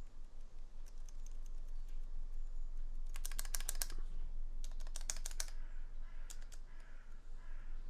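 Keys with lubed stabilizers on a KBD67 MKII mechanical keyboard pressed over and over: scattered single clicks, with two fast bursts of clicking a little past the middle. The stabilized keys sound very rattly, a rattle that taking out the washers has not cured.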